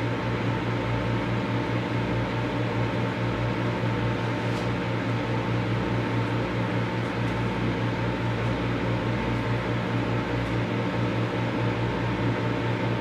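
Microwave oven running: a steady low hum with even fan noise, unchanging throughout.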